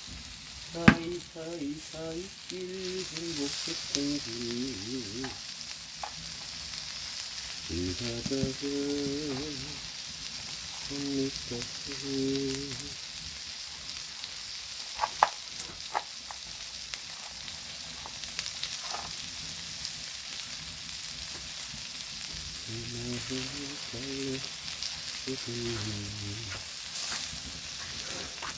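Pork belly and gopchang sizzling steadily on a flat stone heated on top of a wood-burning gas-cylinder stove, with a few sharp clicks. Short pitched sounds come and go faintly in the background.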